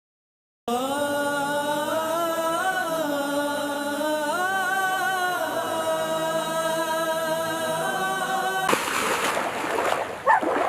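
A sung vocal line of long, slowly wavering held notes in a chant-like style, starting just under a second in. Near the end it cuts off sharply into splashing water.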